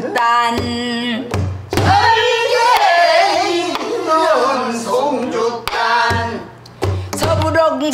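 Pansori singing in long, bending, held vocal lines, accompanied by a buk barrel drum struck with a stick and the open hand. The drum sounds a few strokes early on and again in the second half, and the singing drops away briefly past the middle.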